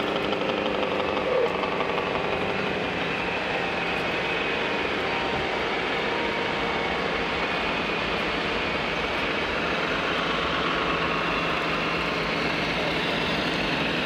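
Radio-controlled scale trucks' engine sound running steadily, a continuous diesel-like rumble and hum with no sharp events.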